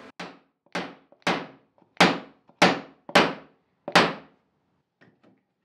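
Mallet striking a metal background punch into wood to texture the ground of a low relief carving: about seven sharp taps, roughly one every half second to second, stopping about four seconds in.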